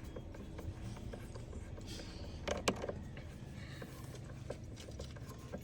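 Faint clicks and rattles of engine parts and connectors being handled and fitted back on, with a couple of sharper clicks about two and a half seconds in.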